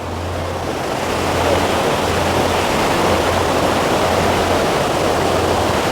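Rushing stream water, a steady hiss that grows a little louder over the first second and a half and then holds.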